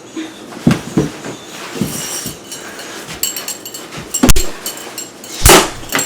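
A series of sharp knocks and thumps, the loudest about four seconds in, followed by a short rushing whoosh near the end.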